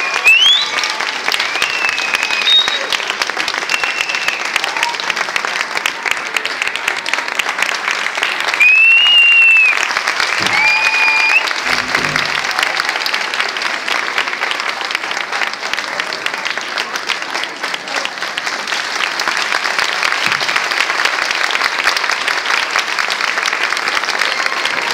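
Audience applauding steadily and loudly for the performers, with a few high whistles from the crowd, the longest about nine seconds in.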